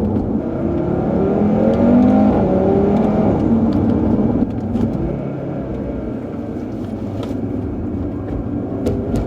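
2018 Audi RS3's turbocharged five-cylinder engine accelerating, its pitch rising for about three seconds, then easing off about four seconds in to a steadier, slightly quieter run.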